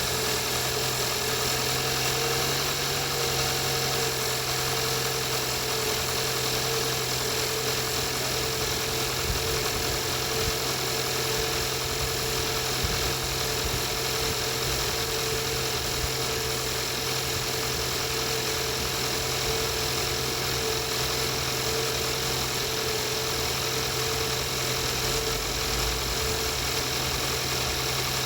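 Engine idling steadily with a knock, the fault the owner is recording.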